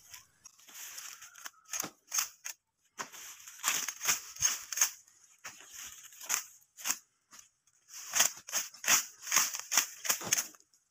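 Dry sugarcane leaves crackling and rustling as a small curved hand blade strips them from cut cane stalks, in quick irregular strokes that come thicker near the end.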